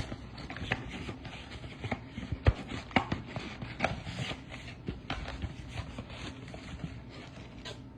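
Trading cards being handled and flipped through by hand: a string of light, irregular clicks and soft scrapes as cards slide over one another.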